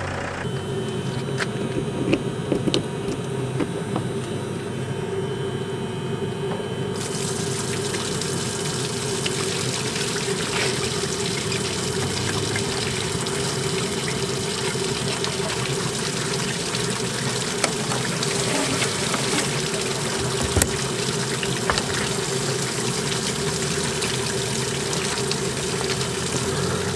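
Water running steadily through a hose at a motorhome service point, filling the motorhome's water tank, with a steady low hum underneath.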